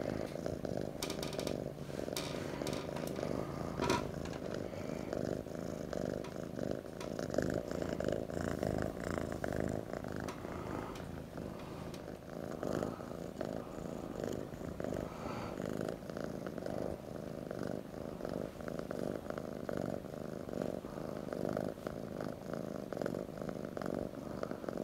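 Orange tabby kitten purring steadily up close, a continuous low, rapidly pulsing rumble. A few soft clicks come in the first few seconds.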